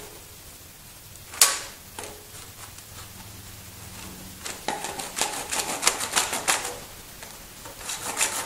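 Hand wood saw cutting into a 6-volt lantern battery's case in quick, short strokes, several a second, with the teeth clicking as they catch. The sawing comes in two spells: one starting a little under halfway through and one near the end. About a second and a half in there is a single sharp knock, the loudest sound.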